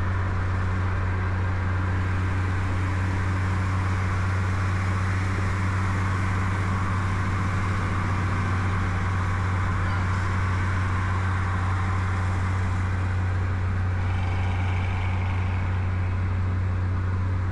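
Car cruising at a steady highway speed: an even low engine drone under a constant hiss of road noise.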